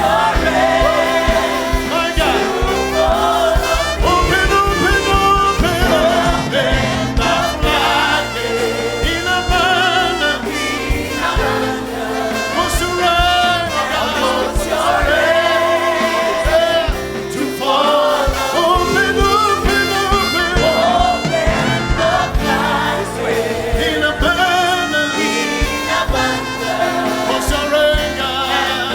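Congregational gospel worship singing: a choir and congregation singing with a band.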